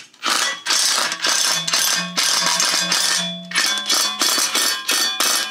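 Cordless impact driver hammering a concrete screw through a steel shelf bracket into cement block: a long continuous run of rapid impacts, then a string of short bursts in the last second and a half.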